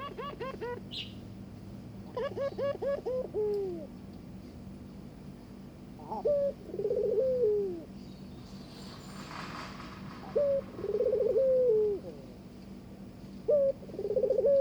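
Ringneck (puter) dove cooing in courtship: first two quick runs of short notes, then three times a short note followed by a rolling coo about a second long, every three to four seconds.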